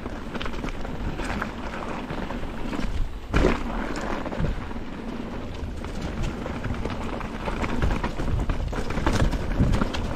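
Mountain bike descending a rough downhill trail: the tyres rumble over dirt and rocks, the bike rattles, and wind noise hits the microphone. A hard thump comes about three seconds in, as from a landing or a big rock strike.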